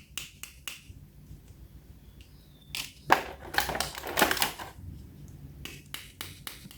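A series of light clicks and small knocks, irregular and scattered, busiest about three to four and a half seconds in.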